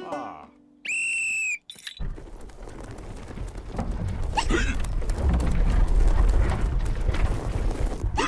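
A short, steady, high whistle blast, then about six seconds of noisy rumbling and rattling that builds in loudness and stops suddenly near the end.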